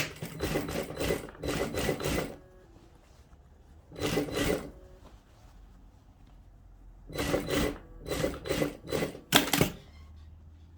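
Sewing machine stitching in three short runs, its needle strokes coming in quick even succession, with pauses between the runs.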